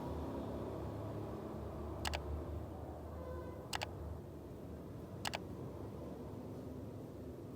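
Three short, sharp clicks about a second and a half apart over a low steady background hum.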